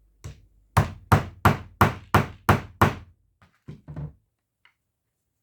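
Hammer striking a snap-setting tool to set a prong snap fastener (gripper stud) through fabric, curling the prongs over: a light tap, then seven hard blows at about three a second, then a few lighter taps.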